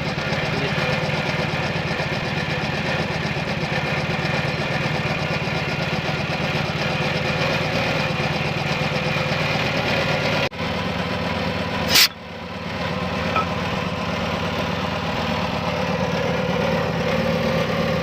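An engine idling steadily, with one sharp loud click or knock about twelve seconds in.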